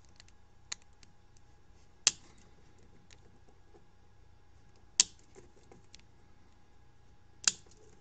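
Flush-cut snips clipping the ends off a plastic Molex-style wafer connector housing: three sharp snaps a few seconds apart, with a few faint clicks between.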